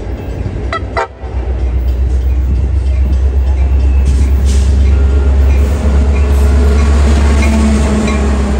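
Metra commuter train's diesel locomotive approaching and passing close by: a deep engine rumble that builds over the first few seconds and stays loud as the locomotive goes past.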